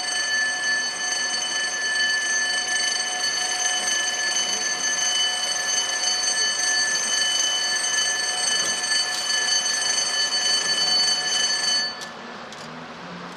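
Electric warning bell ringing continuously at an unchanging pitch, then stopping abruptly near the end.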